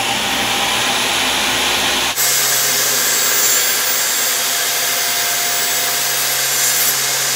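Table saw running, its spinning blade ripping a slot into a small block of PVC trim board. A loud, steady machine noise whose tone shifts abruptly about two seconds in.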